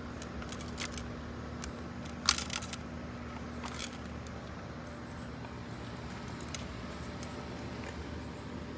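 Pellet gun being handled: a short cluster of sharp clicks and rattles about two seconds in and another near four seconds, over a steady low hum.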